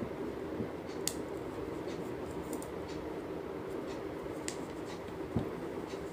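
Metal knitting needles and cloth strips being worked by hand, giving a few light clicks and rustles over a steady low background hum.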